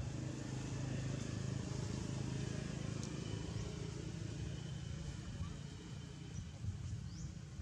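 Outdoor ambience: a steady low drone, with a few faint, short, high chirps scattered through it.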